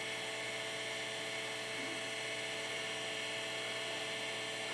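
Steady electrical or mechanical hum made of several fixed tones, unchanging throughout.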